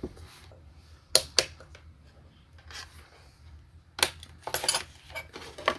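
Small hard objects clicking and clattering as they are handled and set down: a couple of sharp knocks about a second in and a quick cluster of clicks around four to five seconds in.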